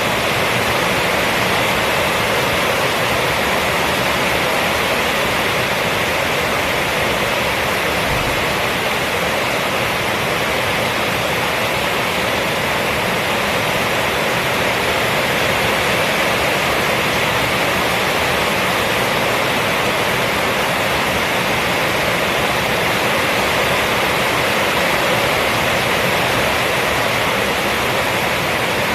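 Rainstorm on a roof: a steady, even rush of rain with no single drops, thunder or other sounds standing out.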